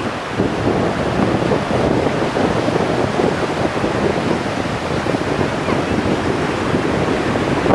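Ocean surf washing in at the water's edge, mixed with wind buffeting the microphone: a steady rushing noise with no distinct events.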